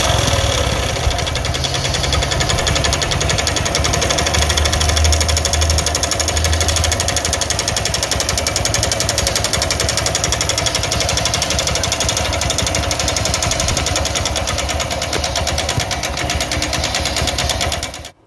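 Bajaj Platina motorcycle's single-cylinder engine running with a rapid, steady metallic tick-tick, cutting off suddenly near the end. The ticking is piston noise from a piston scored when the engine seized.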